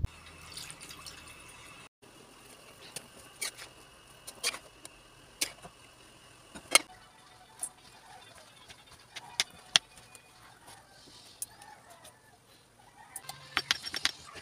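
Kitchen handling sounds: scattered sharp taps and clinks, then a quick run of knife cuts on a wooden cutting board near the end as canned pineapple is chopped into chunks.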